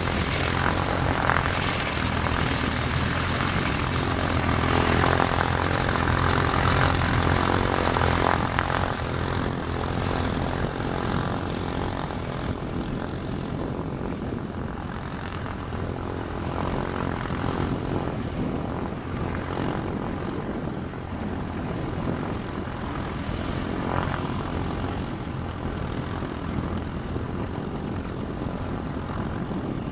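Propeller warbirds' piston engines running as they taxi: loudest in the first several seconds as one aircraft passes close, then easing to a steady lower drone as an F4U Corsair, powered by a Pratt & Whitney R-2800 radial, taxis in.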